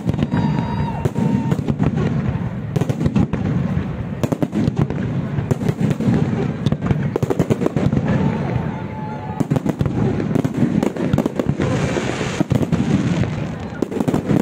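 Fireworks display with aerial shells bursting overhead: a dense, continuous run of bangs, several a second, over a rolling rumble, with stretches of crackling near the end.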